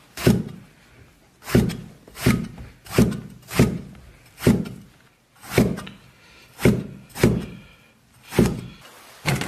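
A kitchen knife chopping an eggplant into roll-cut chunks on a cutting board: about a dozen sharp knocks of the blade meeting the board, irregularly spaced about a second apart as the eggplant is turned between cuts.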